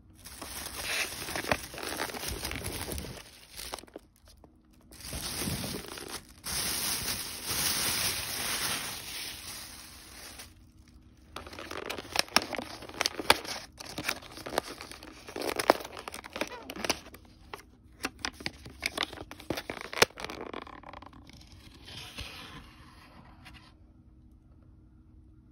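Thin plastic carrier bag rustling and crinkling as a takeout bento box is handled and pulled out of it, followed by a run of sharp crackles and clicks as the box's paper band is torn off and its plastic lid opened.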